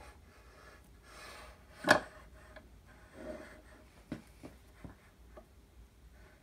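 A metal height gauge sliding across a surface plate while its scriber scrapes marking-out lines into a dyed aluminium plate. There is one sharp metal knock about two seconds in, and a few light clicks follow later.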